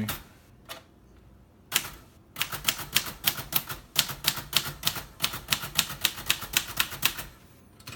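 1956 Royal Quiet Deluxe manual typewriter typing out a line of symbols: a single knock, then a quick, even run of key strikes, about five a second, that stops shortly before the end.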